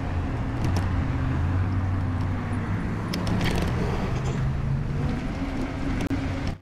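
Riding noise from an electric bicycle on pavement: wind rushing over the microphone mixed with tyre and road hum, steady throughout, with a few faint clicks.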